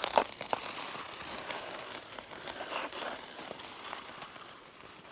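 Ice skate blades striding through a layer of fresh snow on pond ice: two sharp clicks of the blades near the start, then a steady scraping hiss that fades toward the end.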